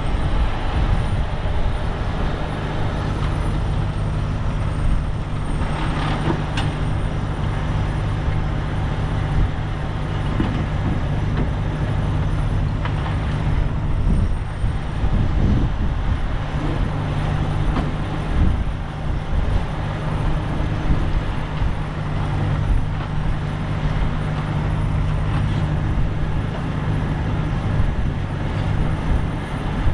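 Heavy rotator wrecker's diesel engine running steadily during a lift, with strong wind buffeting the microphone.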